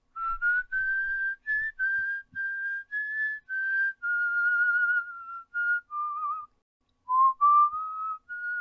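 A person whistling a tune: a string of clear single notes that step up and down, some held with a slight waver, broken by a short pause near the end.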